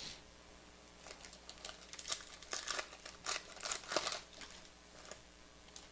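Crinkling and rustling as trading cards and their plastic packaging are handled: a string of short, irregular scrapes between about one and five seconds in.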